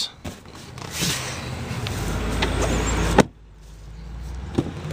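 Movement rustle and rumble, then a single sharp thump about three seconds in as a 2008 Chevrolet Avalanche's rear door is shut.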